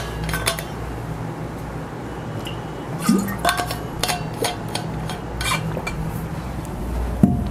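Scattered light clinks and taps, several ringing briefly, over a steady low hum.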